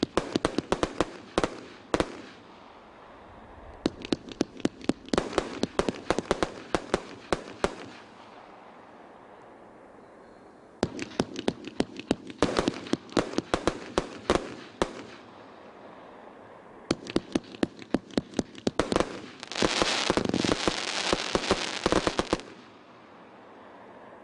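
A 100-shot consumer fireworks cake firing in four rapid volleys of sharp shots, each a few seconds long, with short pauses between. The last volley builds into a dense rush of overlapping shots and then stops abruptly.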